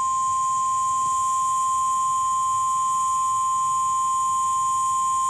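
NOAA Weather Radio 1050 Hz warning alarm tone, one steady, loud, unbroken tone that cuts off abruptly near the end, signalling that a severe thunderstorm warning is about to be read.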